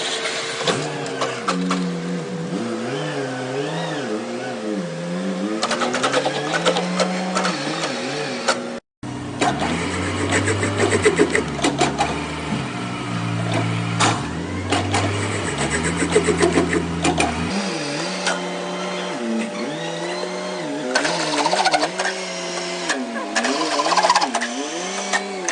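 Metal lathe running while cutting a thread, with a steady machine tone that slowly rises in pitch, and clicks and rattling from the tool and workpiece. The sound breaks off briefly at an edit about a third of the way through, then carries on.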